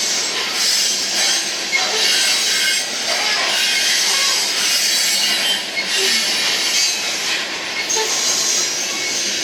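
Loaded coal train's cars rolling on a grade, steel wheels grinding and squealing against the rails in a steady hissing rush.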